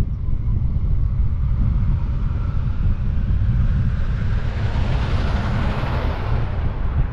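Wind buffeting the microphone of a camera mounted on a moving car, a steady low rumble with road noise. A tanker semi-truck passes the other way, its hiss swelling and fading about five to six seconds in.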